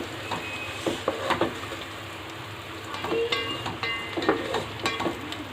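Sliced fish roe frying in oil with onions in a pan, a low sizzle, while a spatula stirs it, scraping and tapping against the pan a few times about a second in and again in the second half.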